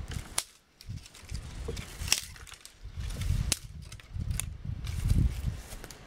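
Small dead twigs snapping as they are broken off a tree by hand: several sharp cracks about a second apart, with low rumbling in between.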